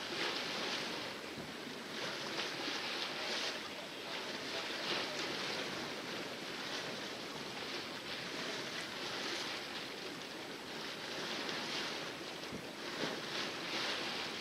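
Water splashing and rushing along a sailboat's hull as she sails with the wind in calm seas, a steady wash that swells and falls back in irregular surges.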